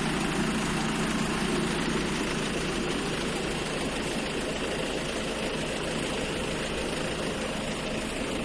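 Steady motor running, an even noise with a low hum throughout.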